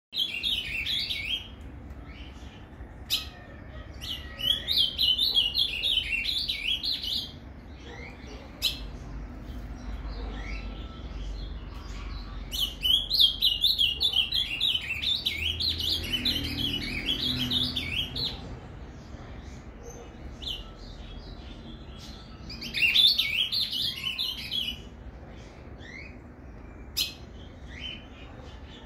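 Caged male ultramarine grosbeak (azulão) singing the 'Paraná' song type, four phrases of rapid warbled notes with pauses between them. A few sharp clicks fall between the phrases.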